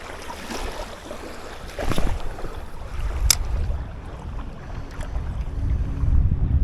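Wind noise buffeting the microphone, with two short sharp clicks about two and three seconds in.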